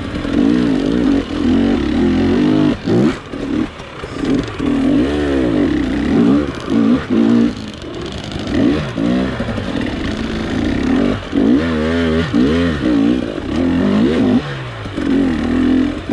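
Dirt bike engine being ridden hard on a trail, its pitch climbing and falling over and over as the throttle is worked and gears change.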